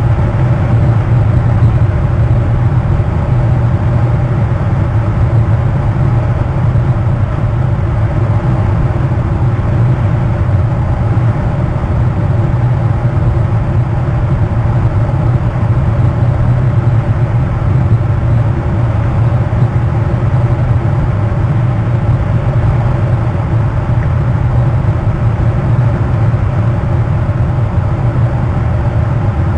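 Steady low droning hum with several fixed pitches stacked above it, unchanging throughout.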